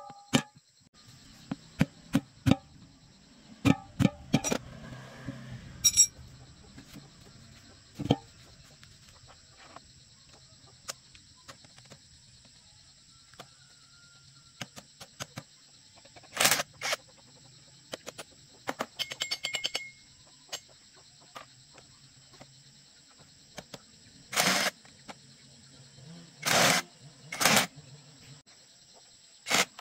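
Sharp metal clinks and knocks of a spanner on the wheel-rim bolts, then a cordless drill running in short bursts of about a second each on the tractor's belt-pulley nut, several times near the end. Crickets buzz steadily underneath.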